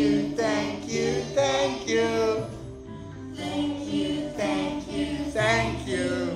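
Music: a song with a singing voice over steady instrumental backing.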